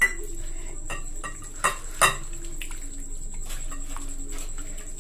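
A hand squishing and mixing chicken pieces through a thick yogurt marinade in a bowl: wet squelching with many small clicks. A few sharp knocks on the bowl come at the start and about two seconds in, and the one at two seconds is the loudest.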